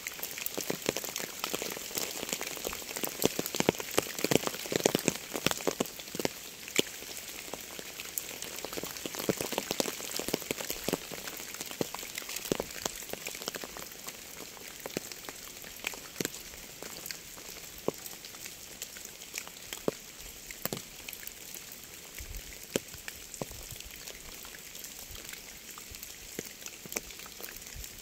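Rain falling: a steady hiss with many separate drops striking a surface. It is heavier in the first ten seconds or so and eases off toward the end.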